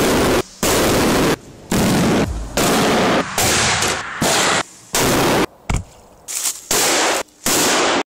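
A string of Czech firecrackers going off one after another: about ten loud bangs roughly a second apart, with one short sharp crack among them. The bangs are loud enough to overload the recording, and the sound stops abruptly near the end.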